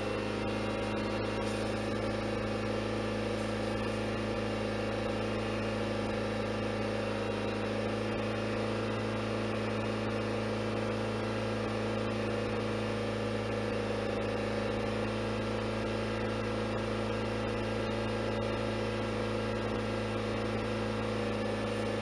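Ford Fusion engine held steady at about 3000 rpm in neutral, heard from inside the cabin as a constant drone that doesn't change in pitch. The engine is revved this way to work trapped air pockets out of the cooling system, which is causing overheating and no cabin heat.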